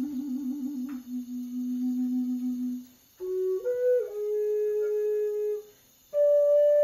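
Slow, breathy flute melody in long held notes: a low note trilled quickly, then held, then after a pause a higher note that steps up and holds, and after another pause a still higher long note begins near the end.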